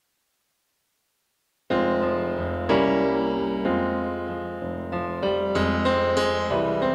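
Digital silence, then about a second and a half in an electric piano starts playing sustained chords over a bass line: the opening of a music track.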